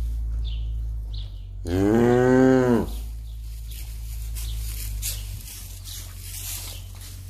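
A cow moos once, a single call of about a second that rises and then falls in pitch, over a steady low hum. Faint rustling of straw follows.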